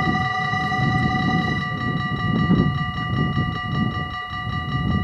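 Dutch level-crossing warning bells ringing steadily while the barriers lower, the signal that a train is coming. About a second and a half in, the lowest tone drops out and the ring turns into a rapid even pulsing. A low rumble runs underneath.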